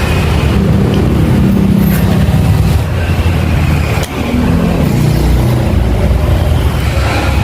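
Loud, steady low rumble of a running vehicle engine, with a brief knock about four seconds in.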